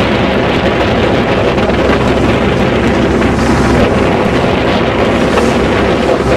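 Motor launch's engine running steadily, with wind buffeting the microphone.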